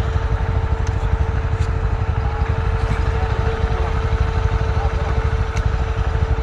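Motorcycle engine running at a steady speed while riding, with a heavy low rumble of wind noise on the microphone.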